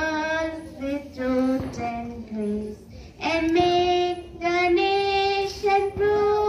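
Children and a woman singing a slow song together into a microphone, with long held notes in short phrases.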